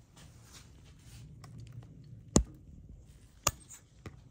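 Handling noise on a workbench: a soft rustle, then two sharp clicks about a second apart and a fainter third click near the end.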